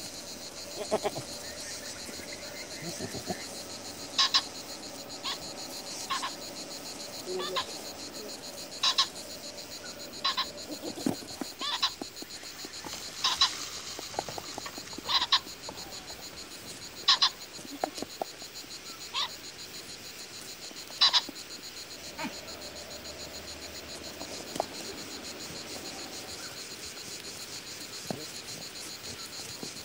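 A steady high insect buzz, with short, sharp animal calls repeated about every two seconds through the middle of the stretch.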